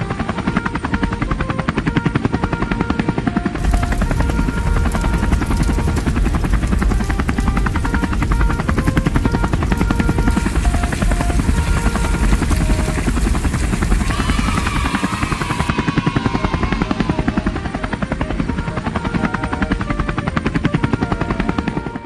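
A machine sound effect: a fast, steady chopping rattle that runs throughout, heavier from about four seconds in, with a wavering high tone rising and falling around fourteen seconds in. Light background music plays underneath.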